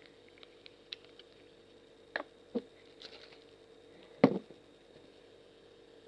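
Glue slime activated with sodium tetraborate being squeezed and stretched by hand, making small clicks and a few sharp wet pops. The loudest pop comes about four seconds in.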